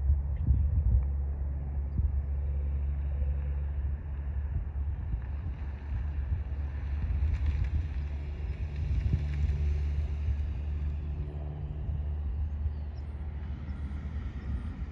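Cessna light aircraft's propeller engine running, growing louder in the middle as the plane passes and then easing off, over a steady low rumble of wind on the microphone.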